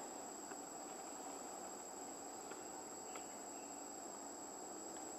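Steady outdoor insect chorus with a thin, unbroken high whine, and a few faint ticks around the middle.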